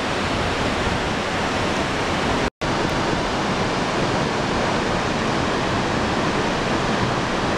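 Steady rush of Nevada Fall and the whitewater below it, a dense, even roar of falling water, cut off for a moment about a third of the way in.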